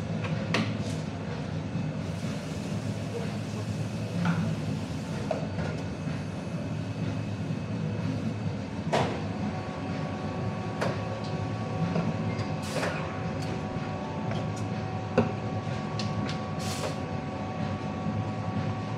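Busy café counter ambience: a steady low rumble of the espresso machine and other equipment, with scattered clinks and knocks of cups and metal jugs. A faint steady tone sets in about halfway.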